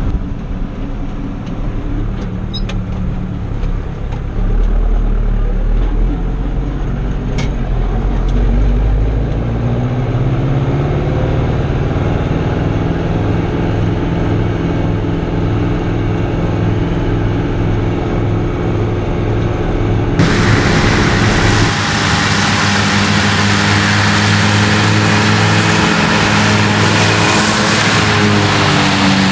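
Fiatagri 88-94 tractor's 3.9-litre turbo diesel, heard from inside the cab, revving up about a third of the way in and then running steadily at working speed while driving a BCS disc mower. About two-thirds through, the sound switches to outside the tractor: the engine is joined by a loud, even hiss from the mower.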